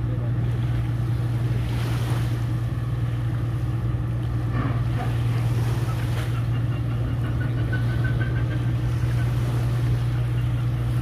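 Tugboat's diesel engines running with a steady low drone across the water as it pushes a tanker alongside a jetty, with small waves washing on the shore.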